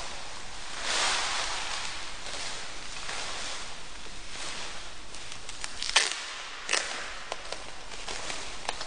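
Plastic wrapping rustling as framed pictures are unwrapped and handled, with a few sharp knocks of frames being set down on a table, the loudest about six seconds in.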